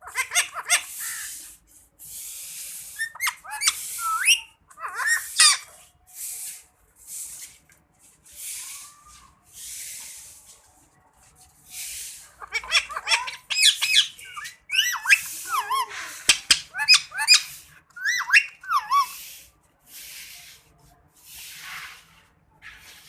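Indian ringneck parrot calling in bursts: quick squawks, warbling whistles that slide up and down, and breathy, hissing chatter, with busier, louder stretches about halfway through and again in the last third.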